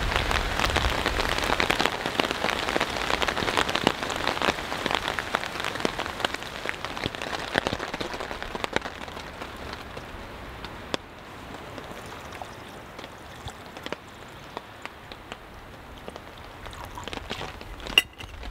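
Hail pelting a camping tarp overhead: a dense patter of small hits, heaviest at first and thinning out over about the first ten seconds. A single sharp knock near the end.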